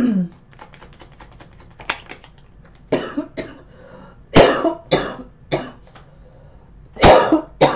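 A person having a coughing fit: several harsh coughs in three clusters, the loudest about halfway through and near the end.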